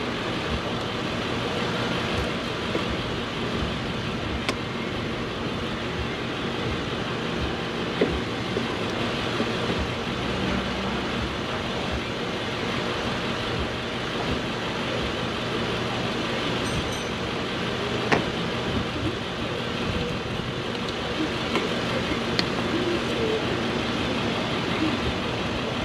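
Steady motor-vehicle and road-traffic rumble, with a few light clicks.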